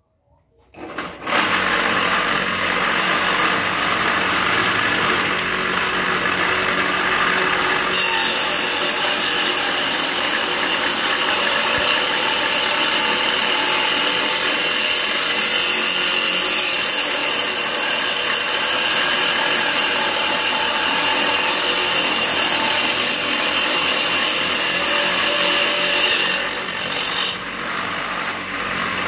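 Homemade table saw driven by a reused water-pump motor: the motor starts and the blade spins up about a second in. From about 8 seconds the blade is cutting through a wooden batten, which adds a harsh high sawing noise, and it runs free again near the end.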